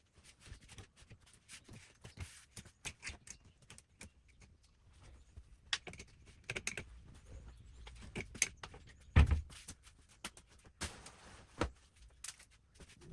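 Irregular small clicks, taps and knocks of things being handled in a small room, with one heavier thump about nine seconds in.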